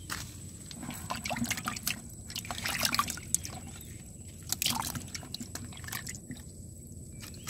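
Water splashing and sloshing in a plastic basin as a hand reaches in and grabs a live fish, in irregular bursts of splashes, loudest about three seconds in and again near five seconds.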